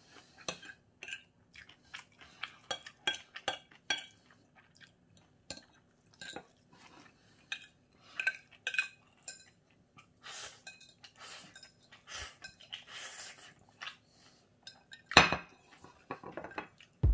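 Small metal fork clinking and scraping against a ceramic plate as the last noodles and sauce are gathered up: many short, irregular clinks, with one louder clink about fifteen seconds in.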